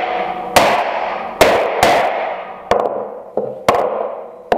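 Wooden mallet striking iron holdfasts to set them down hard on a workpiece in the workbench, about six blows at uneven intervals. Each blow rings on, and one near the middle is lighter.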